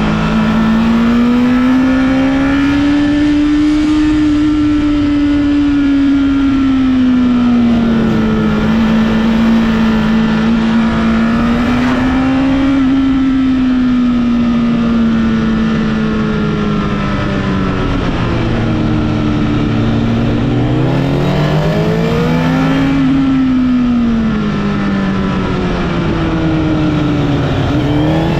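Honda CBR1000RR sportbike's inline-four engine heard onboard while riding, revs rising and falling steadily with the throttle, with a wind rush underneath. About two-thirds of the way through the revs dip low, then climb again, and they swing down and up once more near the end.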